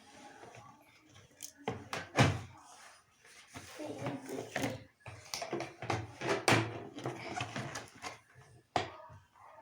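Several sharp knocks and clatters from objects being handled, the loudest a little over two seconds in, among young children's voices.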